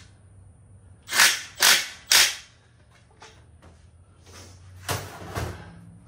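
Ratchet wrench tightening a bolt on a steel stand: three quick ratcheting strokes about half a second apart a little over a second in, then softer metal clicks and a rattle near the end.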